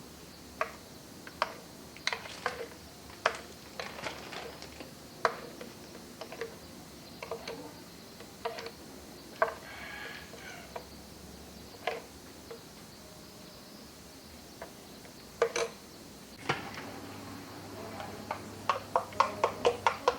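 Irregular clinks and taps of kitchen utensils against dishes, with a quicker run of taps near the end.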